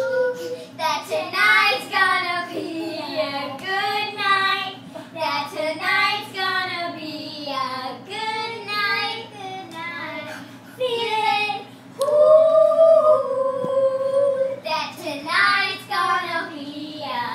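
A young girl singing a tune in phrases without clear words, with a long held note about twelve seconds in.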